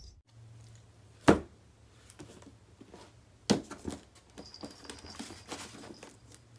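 Quiet handling of a cardboard box and toys: a sharp knock about a second in and another about three and a half seconds in, with small taps and rustles between them, over a faint steady low hum.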